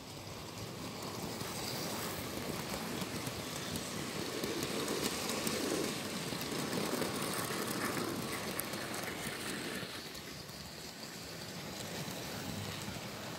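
Model railway freight train of open wagons, led by a Heljan LMS Beyer Garratt, rolling past on a curve: a steady rattle of small wheels clicking over the track, loudest in the middle as the wagons pass close and easing off near the end.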